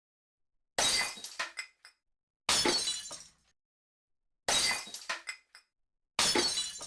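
Glass smashing four times, roughly every two seconds. Each is a sudden crash followed by tinkling shards that die away within about a second, with dead silence between smashes.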